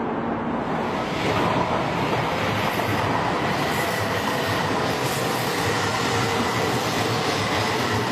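Train pulling out along the platform: the rolling rumble rises about a second in, then holds steady with a faint high whine.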